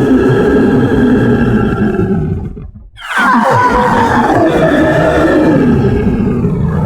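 Halloween monster growl sound effect, loud and rough. One long growl dies away about three seconds in, and a second growl starts right after, sliding down in pitch.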